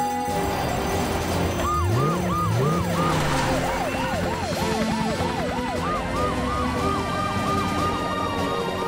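Several cartoon emergency-vehicle sirens wailing together, overlapping rising-and-falling sweeps, one fast and quick-cycling and a slower one joining about six seconds in, over background music.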